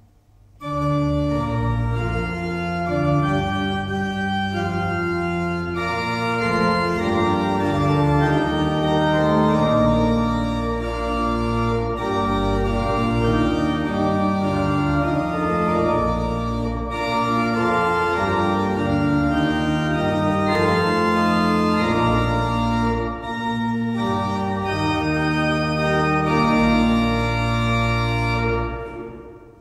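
Church organ playing a slow piece in full, held chords over a deep pedal bass. It begins about half a second in and dies away near the end.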